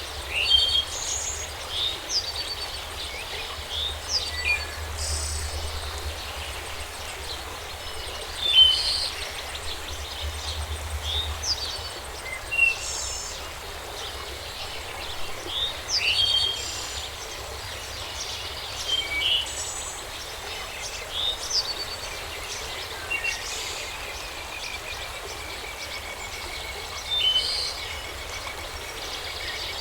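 Several birds chirping and calling in a forest, many short chirps and whistles coming every second or so over a steady hiss of background noise, with a faint low rumble in the first half.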